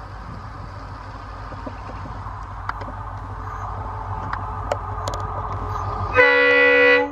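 Approaching diesel locomotive, its engine rumble slowly growing louder, then a single horn blast of just under a second near the end; the horn is the loudest sound.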